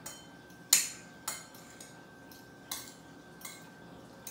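Knife and fork clinking against a plate while cutting food: a handful of separate sharp clinks, the loudest about a second in.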